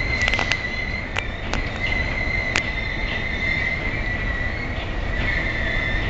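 Diesel locomotive running slowly into the station, its wheels squealing in one steady high tone against the rails over a low rumble, with a few sharp clicks along the way.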